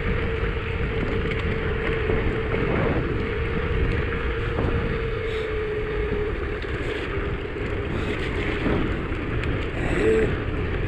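Wind rushing over the microphone of a bicycle ride, with the tyres hissing on a wet lane. A faint steady hum slowly drops in pitch and fades about six seconds in, and there is a short squeak near the end.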